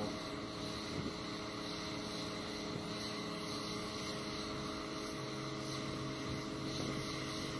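Steady machinery hum with several held tones, a lower tone joining about five seconds in.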